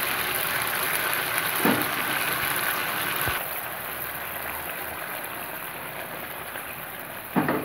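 Chicken curry simmering in a karahi, bubbling with a steady watery hiss as a cream and ground dry-fruit paste is poured in. The hiss drops in level about three seconds in.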